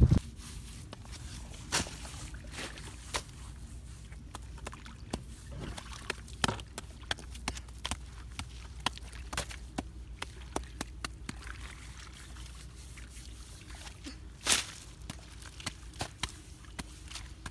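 Wet mud being dug by hand and with a pole: irregular sharp knocks and wet slapping as the pole jabs into muddy ground and mud is scooped out, with one louder knock near the end.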